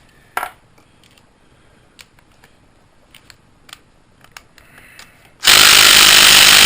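An impact wrench runs hard in one long burst of about two seconds, starting about five and a half seconds in, working loose a nut torqued on over factory spec. Before it, a few light clicks and taps of tools being handled.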